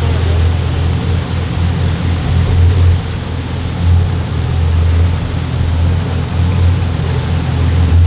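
Fishing boat's engines running under way with a steady low drone, over the rushing of water in the wake.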